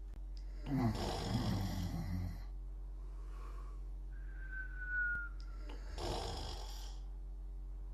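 Snoring: two long snore breaths about five seconds apart, with a thin high whistle about a second long, falling slightly in pitch, between them.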